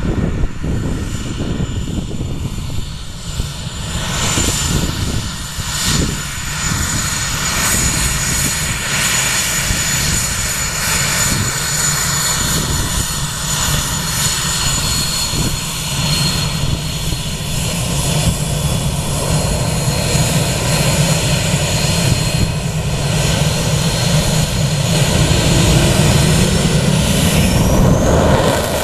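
Twin General Electric J85 turbojets of a Northrop F-5E Tiger taxiing: a steady high whine over a low rumble. Over the last few seconds the whine rises in pitch and the sound grows louder as the engines spool up.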